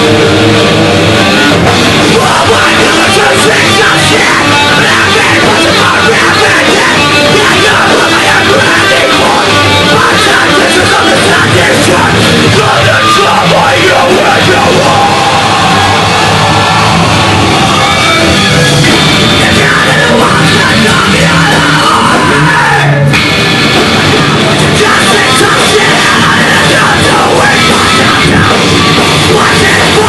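Post-hardcore rock band playing loud and heavy live, with distorted electric guitars, bass guitar and drum kit. There is a split-second drop-out about three-quarters of the way through.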